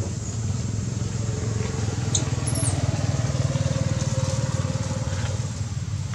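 A motor vehicle's engine passing by: a low, pulsing rumble that grows louder through the middle and then fades. A brief high chirp sounds about two seconds in.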